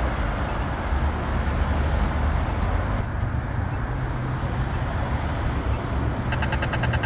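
Road traffic rumbling past. About six seconds in, a Polara iNS accessible pedestrian push button starts its rapid tick, about ten sharp ticks a second: the walk signal for the crosswalk.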